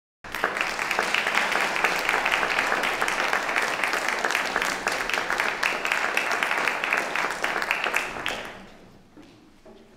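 Audience applauding: a dense patter of clapping that starts abruptly and dies away about eight seconds in, leaving only a few faint knocks.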